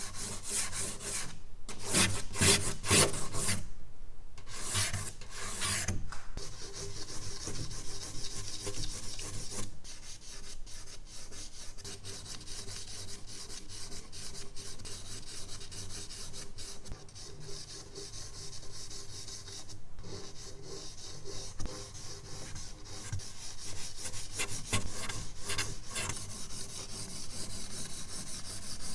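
Charcoal stick scratching across paper in fast back-and-forth hatching strokes. The heaviest, loudest strokes come in the first few seconds; after that the scratching is lighter and continuous, growing stronger again near the end.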